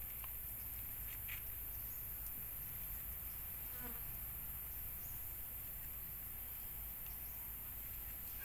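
Steady high-pitched drone of insects, with a few faint short chirps now and then.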